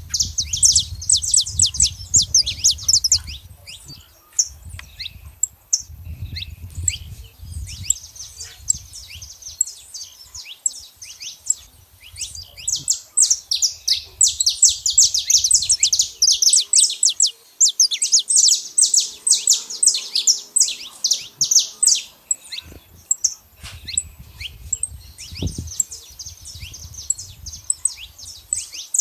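Saffron finch (canário-da-terra) singing: long runs of fast, high, down-slurred chirps in several bouts with short pauses between them.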